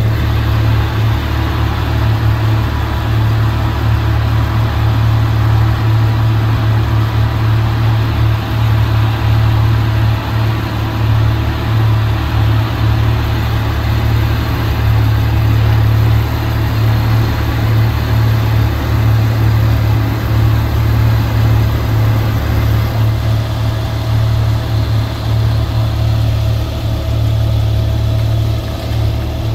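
Off-road vehicle's engine running steadily at low speed, a deep, even drone with no pauses.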